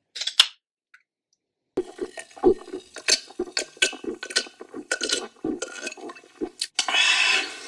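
Swallowing and gulping as a can of carbonated Canada Dry ginger ale is drunk from for about five seconds, after a couple of sharp clicks and fizz of the can being handled and opened near the start. A short hiss near the end.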